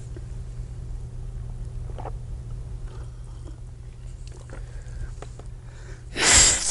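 Steady low hum with a few faint clicks and knocks of a mug being sipped from and set down on the floor. Near the end, a short, loud rush of breath.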